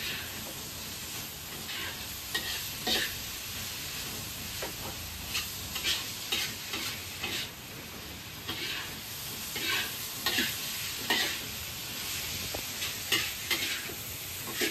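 Spatula scraping and knocking against a wok as fried rice is stir-fried, in irregular strokes over a steady sizzle of frying oil.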